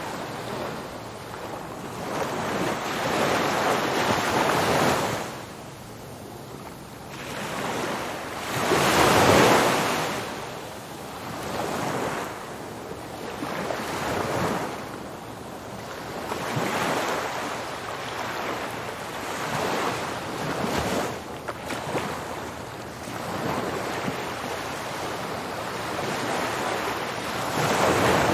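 Ocean waves breaking on a beach, the surf swelling and falling back every few seconds, with one larger wave about a third of the way in. Wind buffets the microphone.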